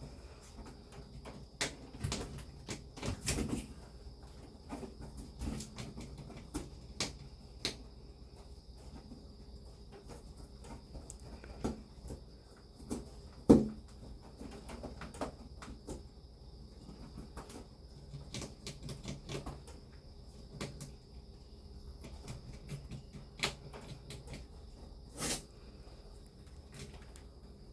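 Irregular small clicks and knocks of things being handled, with one sharper, louder knock about halfway through, over a faint steady high-pitched tone.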